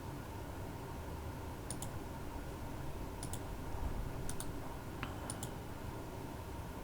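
Computer mouse clicking: four quick pairs of sharp clicks spread across a few seconds, over a steady low hum.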